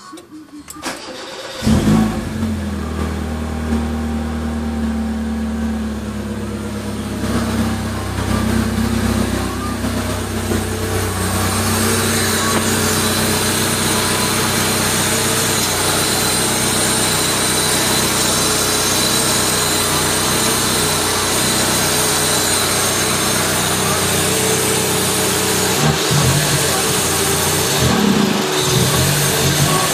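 Mazda Familia 323 engine starting about two seconds in, then running steadily with its MAF sensor unplugged. The owner suspects a vacuum leak.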